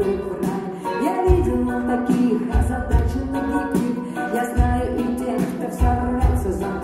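Live band music with a woman singing lead into a microphone, backed by electric guitar and keyboards.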